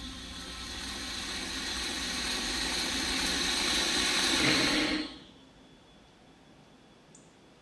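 A rushing hiss from a film soundtrack that swells steadily louder, then cuts off abruptly about five seconds in, leaving faint outdoor quiet with a small high bird chirp near the end.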